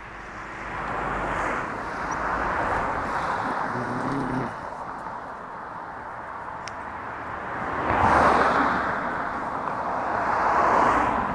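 A few cars passing one after another on the road, their tyre and engine noise swelling and fading in turn.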